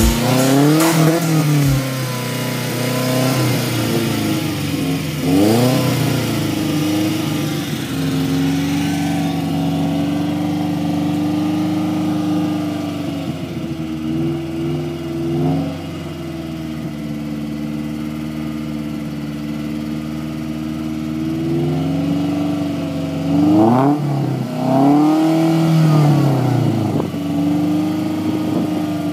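1999 Acura Integra's four-cylinder engine being revved through its exhaust: a few quick revs in the first several seconds, then held at a steady raised speed for a long stretch, dropping back somewhat around the middle, with another burst of sharp revs about two-thirds of the way in before it settles to a steady hold again.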